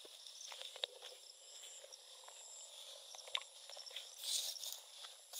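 Faint footsteps and rustling through low leafy crop plants, with scattered light ticks and a short swell of hiss a little after four seconds, over a thin steady high tone.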